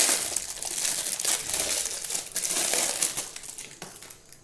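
Clear plastic packaging crinkling as it is handled and a phone-holder clamp is worked out of it, dying away near the end.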